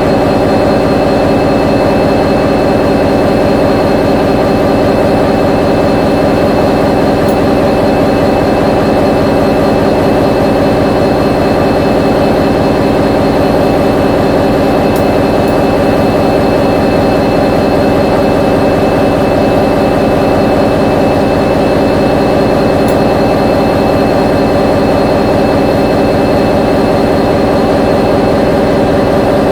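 Diesel locomotive running steadily, a loud, even engine drone with a constant high-pitched whine over it.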